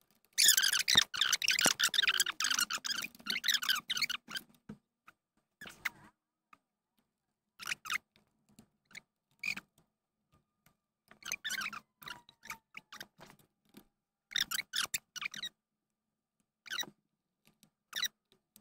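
Clicks, scrapes and rattles of plastic parts being handled as a portable power station's fan unit is fitted back in: a dense run of clicks over the first four seconds or so, then scattered short clicks and rustles with silent gaps between them.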